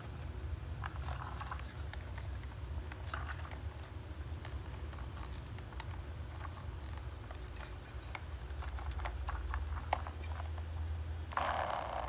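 Light clicks and taps of a plastic toy tractor with a loader arm being handled and turned over in the hands, over a low steady hum. A short rubbing scrape near the end.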